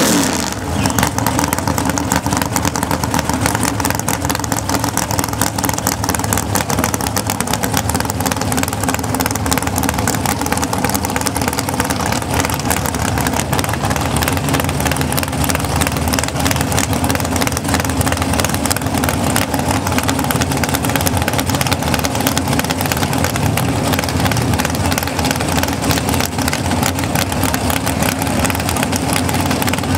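Pontiac Fiero drag car's race engine idling loudly and steadily, with a fast, rough pulse, while the car waits at the start line after its burnout.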